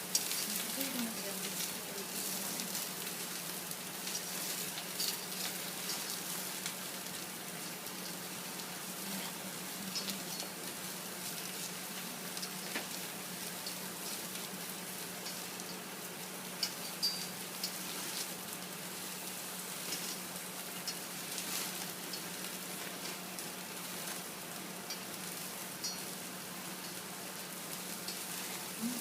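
Food sizzling and crackling on a Wolf charbroiler grill, with a steady low hum underneath.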